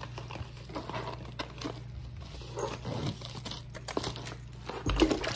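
Plastic cling wrap crinkling and tearing as it is pulled off a foam meat tray, a rapid scatter of crackles. A dull thump near the end.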